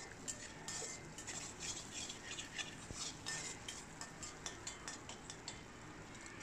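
Metal spatula scraping and clinking against an iron kadai as a thick egg and chili-paste mixture is stirred: a quick, irregular run of scrapes and taps that thins out near the end.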